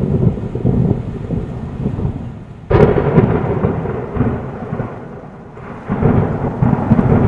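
Rolling thunder. A sudden sharp crack comes about three seconds in and trails into a long rumble, and another rumble swells near the end.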